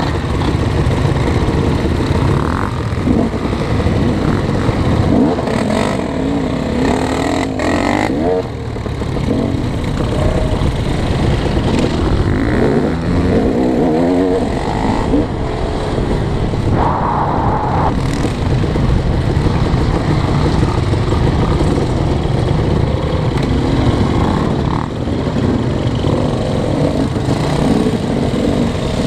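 Dirt bike engines revving up and down with repeated rises and falls in pitch, heard from on board a bike as it rides the trail.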